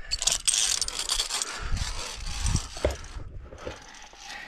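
Scraping and rubbing against limestone rock as a climber moves up close to the rock face, with a few dull knocks about two to three seconds in.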